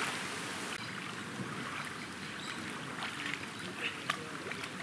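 Swimmers in a pool: a steady wash of moving water with a few small splashes.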